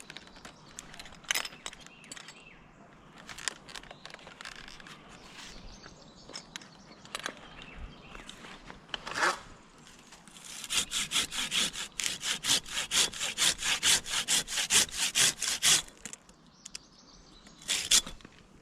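Hand pruning saw cutting through a pine limb: a run of quick, even back-and-forth strokes, about five a second, for about five seconds. Scattered knocks and rustles come before it, and there is one sharp knock near the end.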